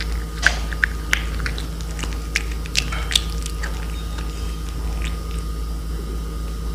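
Cat chewing cooked fish, wet smacking clicks coming in a quick run over the first three seconds or so, then fewer and fainter.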